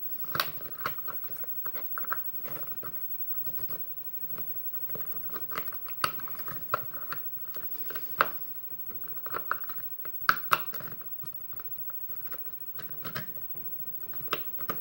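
Metal clip-removal tool prying and scraping at a tight retaining clip on a Kwikset lock cylinder, making irregular small clicks, taps and scrapes, some sharper than others, around 2, 6, 8 and 10 seconds in.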